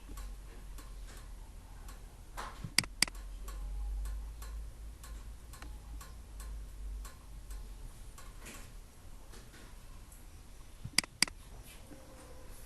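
Steady faint ticking, about three ticks a second, over a low hum. Two sharp double clicks stand out, about three seconds in and again near the end.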